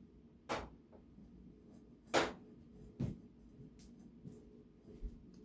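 A few sharp knocks and clicks of kitchenware being handled, such as a utensil or container against a dish, the loudest about two seconds in, with fainter ticks after.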